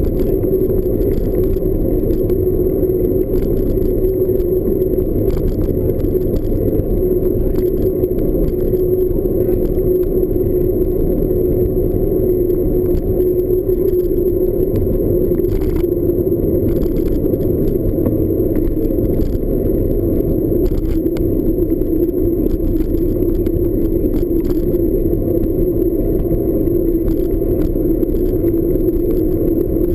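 Mountain bike rolling over a dirt trail: a steady rumble of tyres and ride noise with rattles and scattered light knocks.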